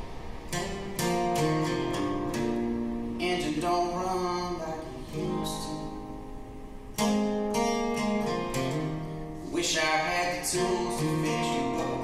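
Music: an acoustic guitar strumming chords, with strong strums about seven and ten seconds in.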